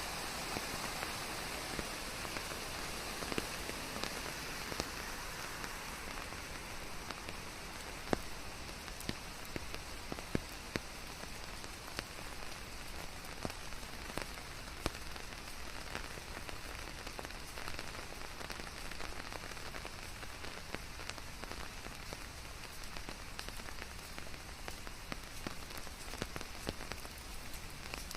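Steady rain falling on a surface, a continuous hiss with many distinct drops ticking sharply through it.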